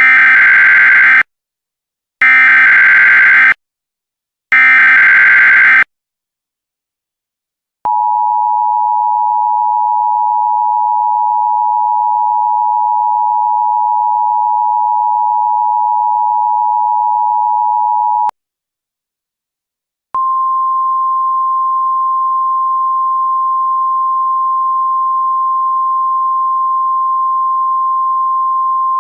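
Emergency Alert System tones: three short bursts of SAME header data about a second apart, then the two-tone EAS attention signal held for about ten seconds. After a pause of about two seconds comes a single steady tone.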